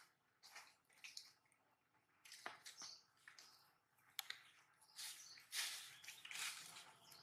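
Faint, irregular soft smacking and rustling as macaques chew and handle banana, with a sharp click about four seconds in.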